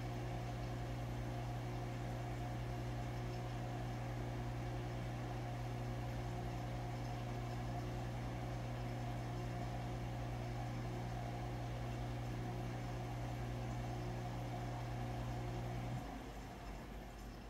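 Steady low mechanical hum of running aquarium equipment, with a fainter higher tone over it. The hum cuts off abruptly near the end, leaving a quieter hiss.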